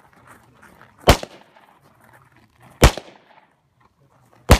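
Three single gunshots, spaced roughly a second and a half to two seconds apart, each a sharp crack with a short echo trailing after it.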